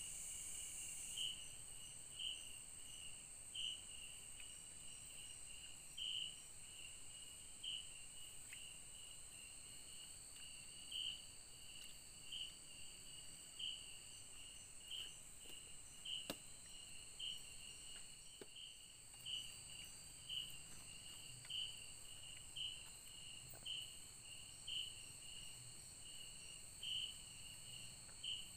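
Night-time forest insects: a steady high-pitched drone with a sharper chirp repeating about once a second. A single faint click about halfway through.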